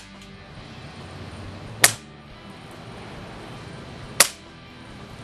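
Two shots from a Daystate Huntsman Classic pre-charged pneumatic air rifle with a shrouded barrel, about two and a half seconds apart. Each is a single sharp crack that dies away quickly.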